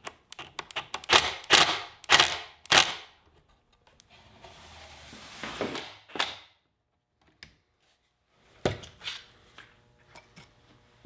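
Milwaukee M12 cordless driver driving screws in short bursts, with one longer run in the middle that stops abruptly. Sharp clicks and knocks from the driver, the wooden parts and the bar clamps being handled come before and after it.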